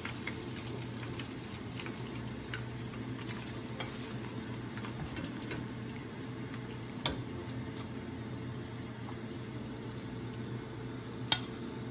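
Hot cooking oil sizzling faintly in a pot after the fried shrimp are lifted out, over a steady low hum. A few light clicks of the metal wire strainer, with a sharper click about seven seconds in and another near the end.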